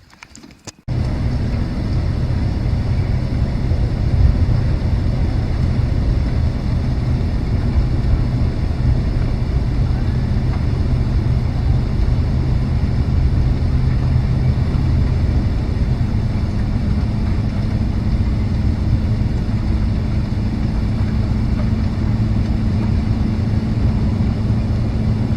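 Pickup truck running, a loud steady low engine hum with a dense rushing noise over it, cutting in abruptly about a second in; its low note shifts about two-thirds of the way through.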